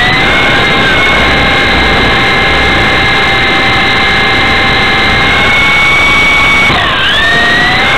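Electric motors and rotors of a Blade CX2 coaxial RC helicopter, heard close from a camera mounted on it: a steady whine that drops in pitch about seven seconds in, then climbs back as the throttle changes.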